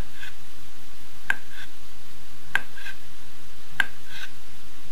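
Kitchen knife slicing through a beetroot, the blade clicking down onto the cutting board about once every second and a quarter, each click followed by a fainter second click.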